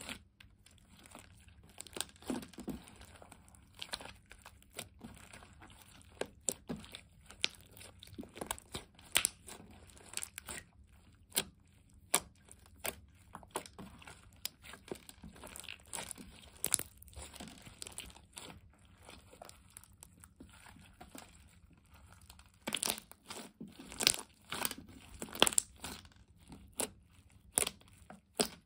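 Hands kneading and squishing thick slime mixed with small add-in bits, giving irregular sticky pops, clicks and crackles as it is pressed, stretched and folded. The pops come thicker and louder near the end.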